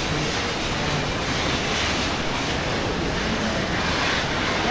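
Steady rushing roar of fast river water, the Coquihalla River running through its gorge, carrying into a rock tunnel.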